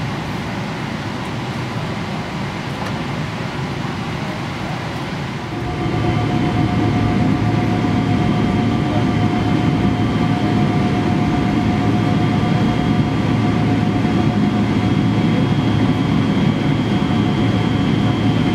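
Steady jet-engine and airflow noise heard inside the cabin of a Boeing 777-300ER moving on the ground, from its GE90 turbofans. About five and a half seconds in it jumps louder and gains several steady whining tones, then holds.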